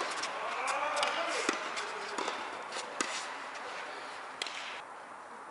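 Tennis balls struck and bouncing on an indoor hard court: a few sharp knocks at irregular intervals, with players' voices in the hall early on.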